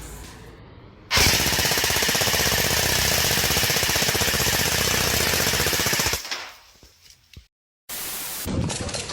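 An airsoft gun firing one long, very rapid full-auto burst of about five seconds, a steady rattle of fast shots that fades away at the end.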